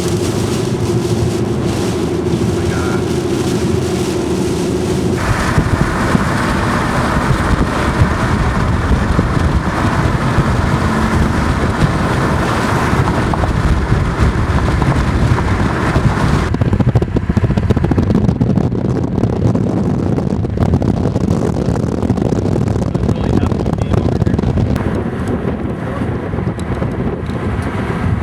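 Car on the move: steady engine and road noise with wind rushing past the microphone. The sound changes abruptly about five seconds in, turning into a louder rush, and dulls again a little past halfway.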